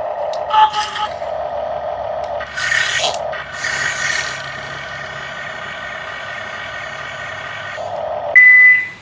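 Toy construction vehicle's electronic sound effects: a steady engine-like hum with a few short rasping bursts, then a loud, high, steady beep near the end.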